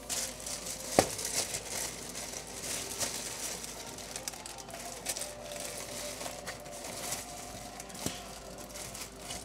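Plastic bread bag crinkling and rustling as it is handled, with a sharp knock about a second in.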